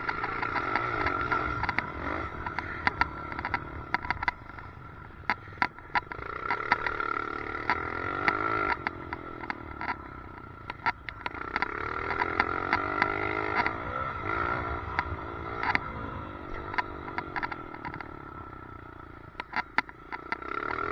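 Dirt bike engine revving up and down while riding, picked up by a helmet-mounted camera. Frequent sharp clicks and a steady high whine run under it, the weird noise the rider puts down to a chin mount needing fixing.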